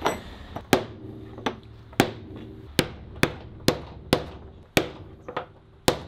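Ball-pein hammer blows on a wooden stick held over steel rivets, knocking them down into their holes through an oak door. About eleven sharp knocks at an uneven pace, roughly two a second.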